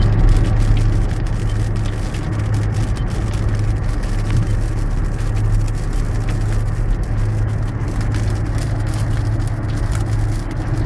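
Car driving, with a steady low engine hum and road noise and faint scattered ticking throughout.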